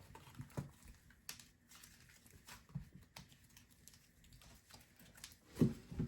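Hands squishing and kneading slime, with scattered faint clicks and crackles. A louder low thump near the end.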